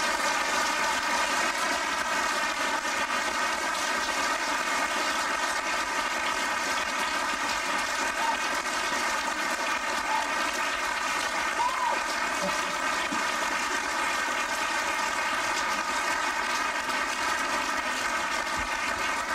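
Audience applauding, a steady, sustained clapping with no break.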